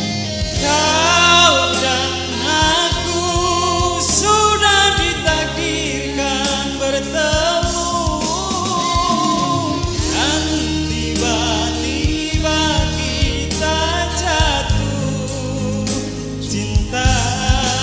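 A man singing a slow love song into a microphone over amplified instrumental backing with a steady bass line, the voice holding and bending long notes.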